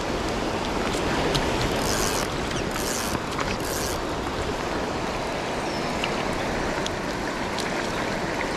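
Steady rushing water noise of a running creek and falling rain, with three short, brighter hisses about two to four seconds in.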